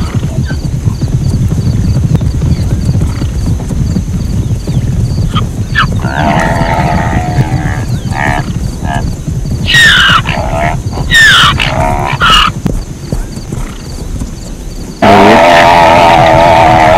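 Zebra calls over a steady low rumble: a pitched call about six seconds in, two high calls falling in pitch around ten and eleven seconds, then a sudden, much louder drawn-out call near the end.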